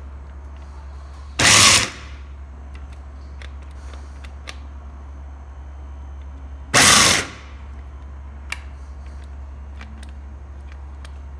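Moulinex Multi Moulinette 500 W mini chopper pulsed twice, about five seconds apart, in short bursts of about half a second each, its blades grinding almonds finer.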